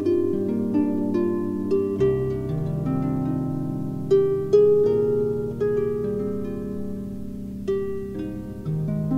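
Instrumental background music in a Celtic style: a melody of plucked string notes, each ringing and fading, with lower notes joining about two seconds in.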